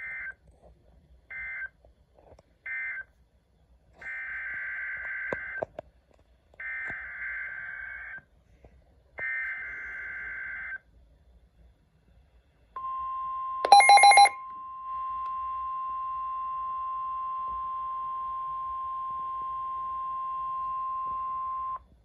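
Emergency Alert System signal played through a weather alert radio's speaker. First come three short bursts of screeching SAME digital data, the end-of-message code. Three longer data bursts follow, the header of the next alert, then the steady 1050 Hz weather-radio alert tone for about nine seconds, with a loud, brief burst of electronic beeping about a second into the tone.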